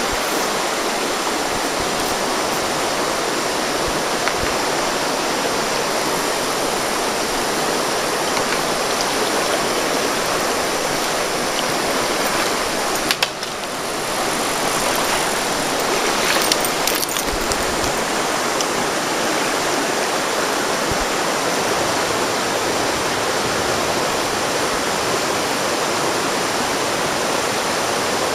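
Steady rush of river water running over rocks and riffles, with a brief drop-out about halfway through.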